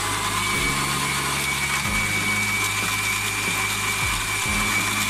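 Electric kitchen blender running steadily, its blades churning muskmelon chunks, ice and water into juice. A steady high whine sits over the motor noise from about a second in.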